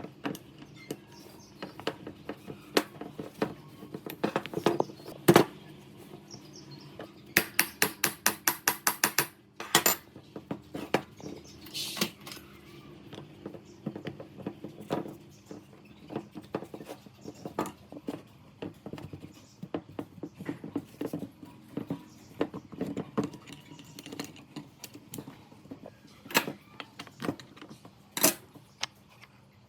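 Metal parts and hand tools clinking, tapping and knocking as they are handled on a workbench. Partway in there is a quick run of about a dozen even clicks, roughly six a second, like a ratchet.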